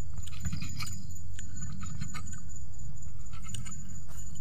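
Scattered light clicks and taps of a small knife cutting food and of eating at a table, over a steady low rumble and a thin, steady high insect drone.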